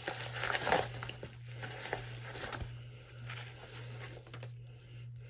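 Rustling and handling noise of a new phone case and its packaging being handled, loudest about half a second to a second in, over a steady low hum.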